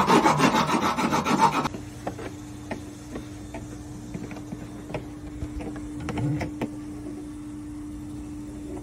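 A ratchet wrench clicking rapidly as it tightens a nut on a chainplate bolt, stopping abruptly about a second and a half in. After that comes a steady low hum with a few faint ticks.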